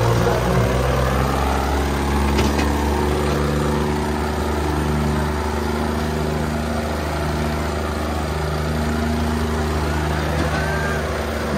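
Diesel engines of a John Deere 5310 and a Mahindra Arjun 605 tractor running at steady revs under heavy load, pulling against each other in a tug-of-war.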